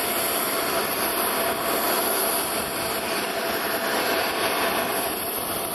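Steady jet airliner noise on the apron: an even rush with a high turbine whine over it.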